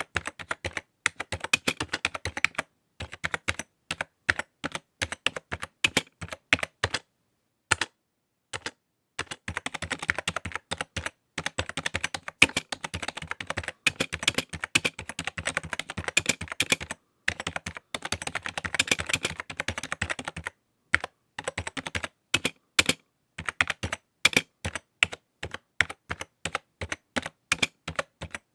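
Typing on a computer keyboard: irregular runs of key clicks, thick and fast in the middle, with short pauses of a second or two between bursts.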